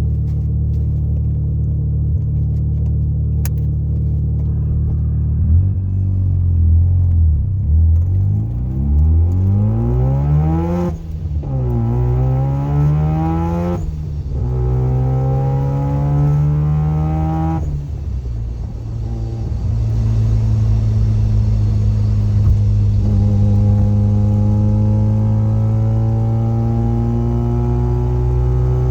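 Mazda FC RX-7's twin-rotor 13B rotary engine and loud exhaust, heard from over the differential, accelerating through the gears with the pitch climbing and dropping at three shifts, then cruising with the pitch slowly rising. Solid delrin subframe and differential bushings let differential gear noise through: a gear whine under heavy load and a static-like hiss while cruising.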